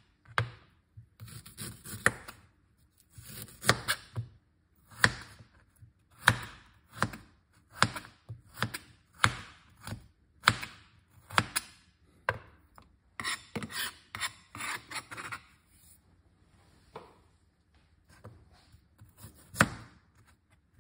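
Chef's knife peeling and cutting a piece of fresh ginger on a plastic cutting board: irregular sharp taps of the blade on the board, roughly one a second, with a stretch of scraping a little past halfway.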